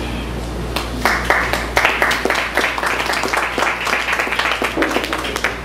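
Audience clapping, starting about a second in.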